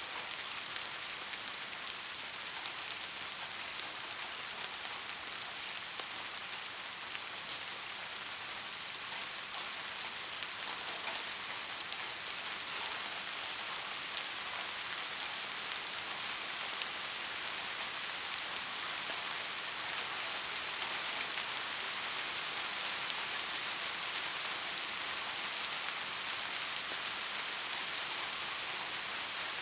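Steady rain falling on a surface: a dense, even hiss of many small drops.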